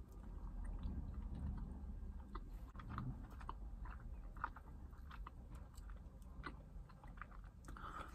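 Quiet chewing of frozen ice-cream mochi, with soft, scattered mouth clicks and smacks over a low steady hum.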